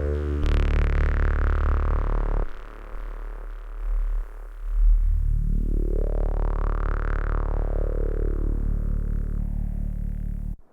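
Arturia MiniFreak polyphonic synthesizer playing a deep, sustained bass preset, its filter sweeping down in the first couple of seconds, then opening up and closing again in the middle. The notes cut off abruptly near the end.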